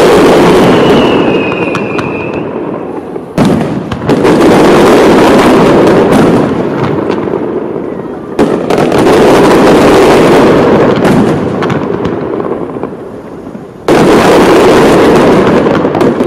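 Fireworks display: a loud burst roughly every five seconds, three times, each followed by several seconds of dense crackle that slowly fades. A falling whistle sounds about a second in.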